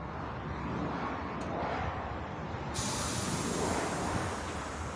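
Coach's engine running, with a sudden steady hiss of compressed air from the bus's air system starting about three seconds in.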